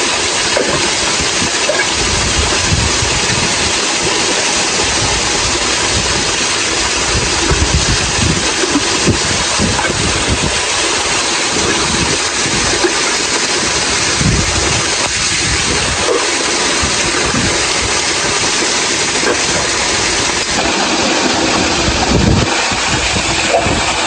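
Loud, steady rush of a waterfall, with uneven low rumbling underneath.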